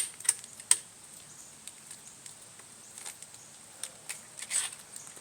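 Pool ladder parts being handled and fitted together: a few sharp clicks and knocks in the first second, then scattered faint ticks and a short scrape about four and a half seconds in.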